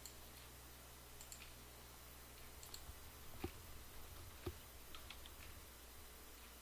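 Faint computer mouse clicks, some in quick pairs, with two louder low knocks about three and a half and four and a half seconds in, over a low steady hum.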